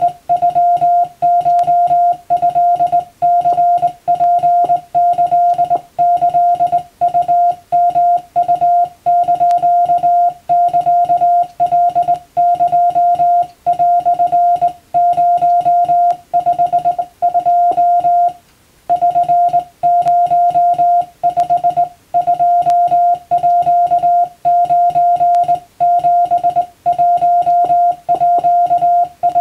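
Japanese (wabun) Morse code sent in CW: a single steady mid-pitched tone keyed on and off in quick dots and dashes, with short gaps between characters and one longer pause about two-thirds of the way through.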